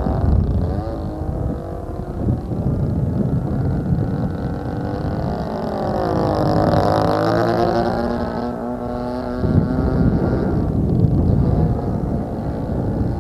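DLE 20cc single-cylinder two-stroke gasoline engine of an RC aerobatic plane running in flight, a steady buzz whose pitch sweeps down and back up around the middle as the plane flies past and changes throttle.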